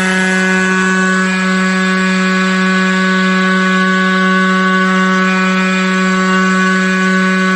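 Tomahawk Pro CNC machine running while machining a plate: a loud, steady motor hum with a constant whine above it and a hiss of cutting noise. The higher tones shift slightly about a second in.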